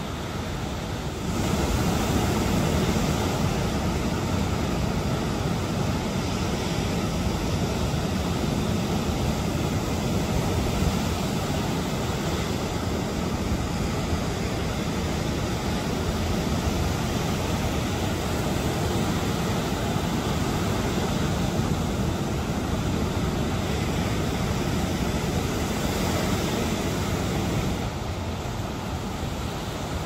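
Rough sea surf breaking and washing continuously onto a sandy beach: a steady, deep rushing noise of rolling waves. It grows louder about a second in and eases back near the end.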